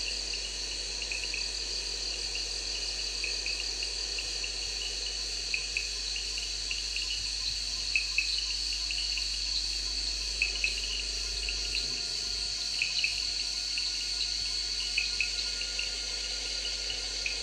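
Insects chirping: a steady high trill with short, sharper chirps every second or so.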